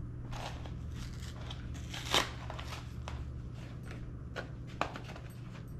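Carton of dehydrated hash browns being opened and handled: scattered crinkles and clicks of cardboard and packaging, with one sharper crackle about two seconds in, over a low steady hum.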